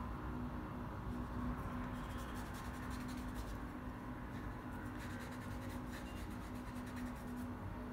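Small paintbrush brushing and scratching on canvas paper as fine detail strokes are laid on, over a low steady hum.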